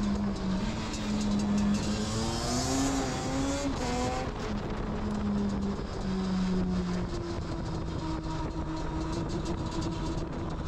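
Yamaha Banshee 350's two-stroke twin engine running under way. The revs climb for about two seconds, drop away sharply about four seconds in, then hold steady at part throttle.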